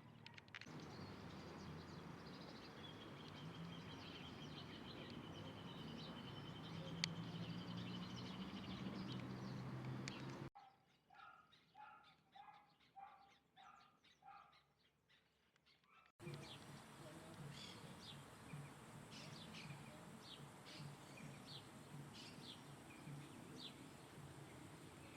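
Birds calling in several short recordings joined by abrupt cuts. First comes a long, thin, steady high note over background noise. Then a series of about a dozen evenly spaced clear notes, followed by scattered short high chirps.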